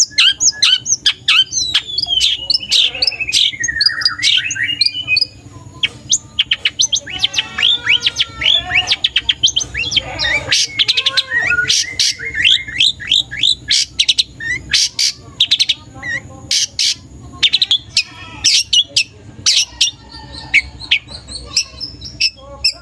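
Young long-tailed shrike (cendet) singing a rapid, varied stream of sharp chirps and clicks, with slurred notes that fall in pitch a few seconds in.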